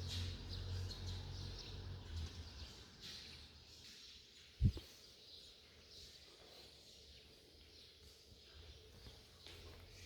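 Faint chirping of sparrows over low background noise, with a single dull thump about halfway through.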